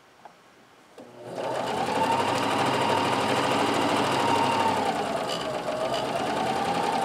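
Electric sewing machine stitching a straight seam: the motor whine and rapid needle stitching start about a second in and run steadily. Late on, the speed dips briefly and then picks up again.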